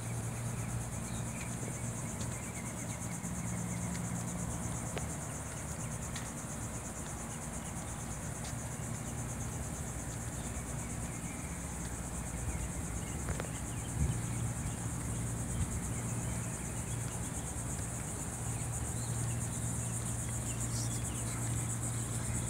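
Steady high-pitched buzz of an insect chorus, with a steady low hum underneath and a few faint ticks.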